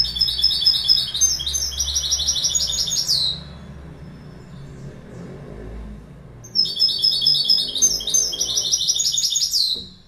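European goldfinch singing: two phrases of rapid trills of repeated high notes, each about three seconds long and ending in a falling note, with a pause of about three seconds between them. A faint low hum runs underneath.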